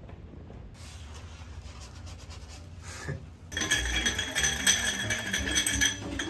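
Ice clinking against a glass mixing glass as a bar spoon stirs a cocktail: a rapid, ringing tinkle that starts a little past halfway through. Before it there is only a low, steady room hum.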